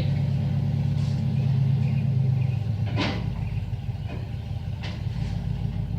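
Truck engine idling steadily, its low hum easing a little about halfway through, with two sharp clicks, one about three seconds in and one near five seconds.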